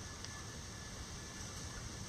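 Quiet, steady outdoor background hiss with a low rumble underneath; the chickens make no calls.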